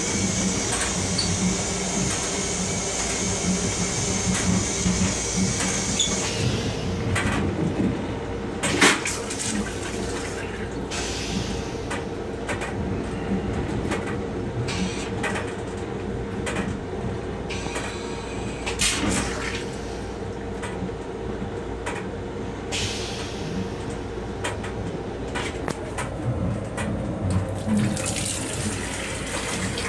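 M7 railcar toilet flushing: a steady hiss of rushing water for about six seconds, then a single sharp clunk a few seconds later. Near the end the sink faucet is turned on and runs, over a steady hum throughout.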